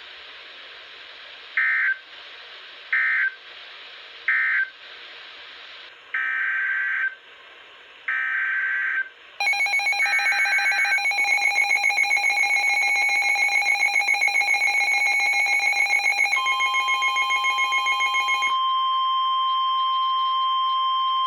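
Emergency Alert System signalling: three short screechy data bursts about a second and a half apart, then three longer bursts, then a loud buzzing alert tone. The tone changes pitch at about 16 seconds in, and about 18 to 19 seconds in it settles into a steady single-pitch tone, the National Weather Service 1050 Hz warning alarm tone.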